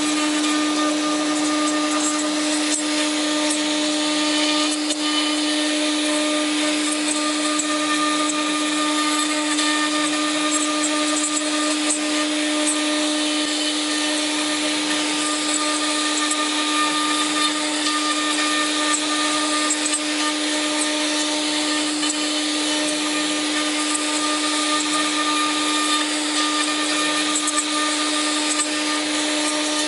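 Woodworking CNC router machining centre running, its spindle giving a steady whine over a dense hiss, with no change in pitch or level.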